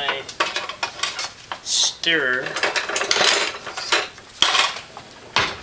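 Kitchen utensils clattering and rattling in a drawer as someone rummages for a stirring spoon, with a string of quick clicks and clinks.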